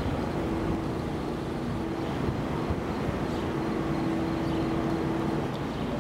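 Wind rumbling on the microphone in open air, with a steady mid-pitched hum that fades in and out.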